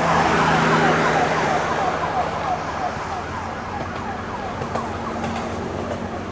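Police siren on an LAPD Ford Police Interceptor Utility sounding a fast yelp: short falling sweeps, about four a second. It is loudest about a second in, then grows fainter as the vehicle moves away.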